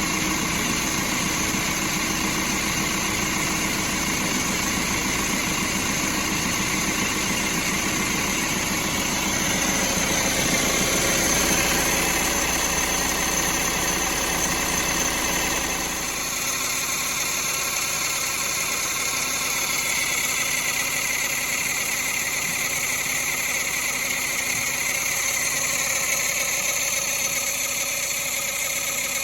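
VW Transporter T6 engine running steadily, with a noise from its air-conditioning compressor. About 16 seconds in the sound changes: the deep rumble drops away and a higher tone stands out more.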